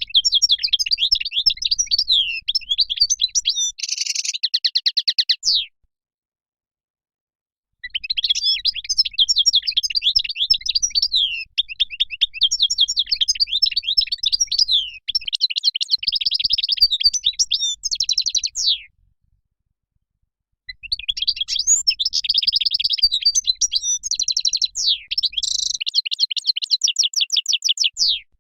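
European goldfinch song: three long phrases of fast twittering and trills, each separated from the next by about two seconds of silence.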